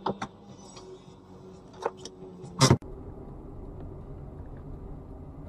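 Dashcam audio inside a moving car: steady engine and road noise, broken by a few sharp knocks in the first two seconds and a loud bang about two and a half seconds in that cuts off abruptly.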